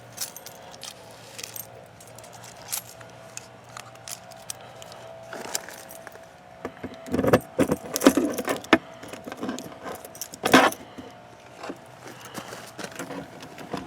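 A bunch of keys jangling, with scattered clicks and rattles and two louder bursts of rattling past the middle, over a faint steady hum.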